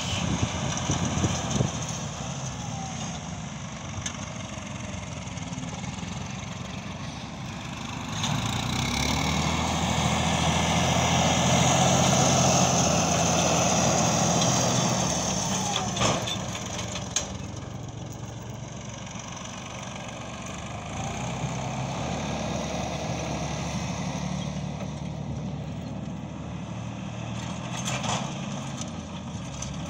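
Farm tractor's diesel engine running steadily as it pulls a seed drill across the field. It grows louder as it passes close by, from about nine seconds in, then fades as it moves away.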